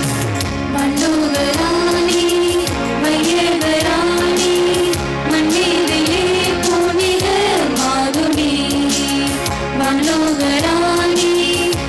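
A closing hymn: one voice singing a melody in held, gliding phrases over instrumental accompaniment with a steady beat.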